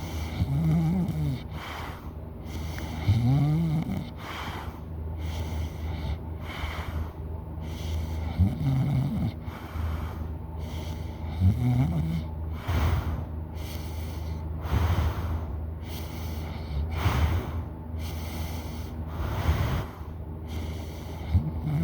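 A person snoring loudly in deep sleep, with a breath about every two to three seconds. Several of the breaths carry a pitched snore that rises and then falls.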